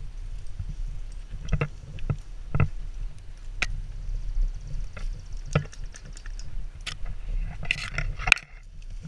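Movement noise from a GoPro carried low through grass among running dogs: a steady low rumble with scattered sharp knocks, and a short burst of rustling near the end.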